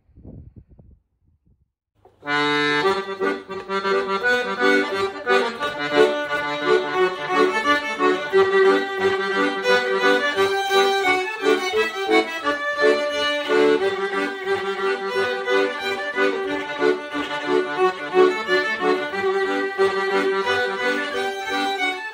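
Instrumental music with held chords and a moving melody, starting suddenly about two seconds in after a moment of near silence.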